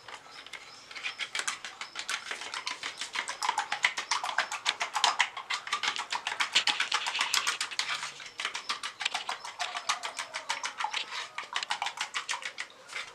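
A metal spoon beating raw eggs in a plastic tub: a rapid, even run of clicks as the spoon strikes the tub, starting about a second in.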